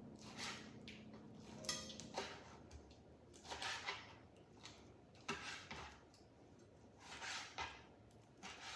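Knife cutting raw chicken thigh meat into bite-size pieces on a cutting board: irregular knocks and short scrapes, with one sharper click near the start.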